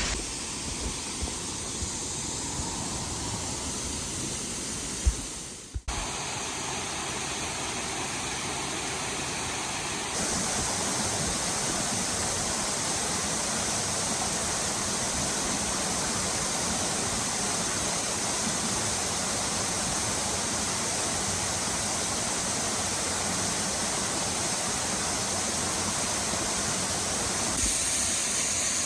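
Steady rush of falling water. The sound breaks off for an instant about six seconds in and is louder from about ten seconds in.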